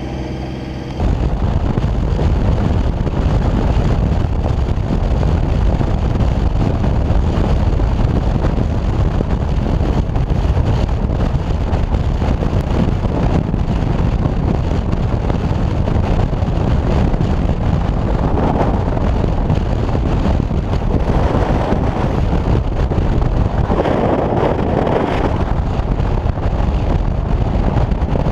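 Wind rushing over a motorcycle-mounted camera's microphone at highway speed, a steady loud roar that buries the bike's engine. In the first second, before an abrupt change, a motorcycle engine is idling with a steady hum.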